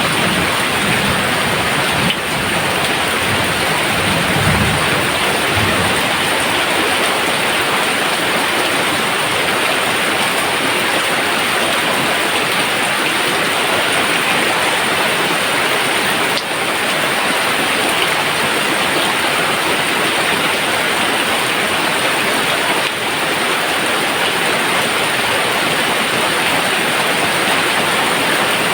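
Rain falling steadily and heavily, an even dense hiss. A low rumble of distant thunder sits under it in the first few seconds.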